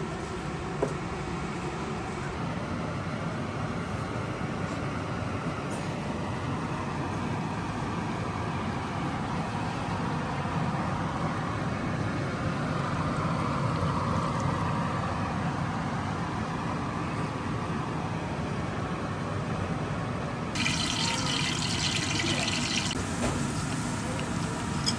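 Water pouring and splashing in a kitchen over a steady rushing hiss, with a brighter, sharper hiss for a couple of seconds near the end.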